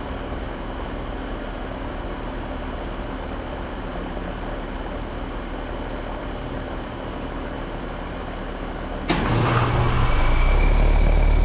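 Outdoor air-conditioning condenser unit starting up. A steady background hum runs for about nine seconds, then the unit comes on with a sudden loud start and settles into a louder steady low hum with a thin high whine.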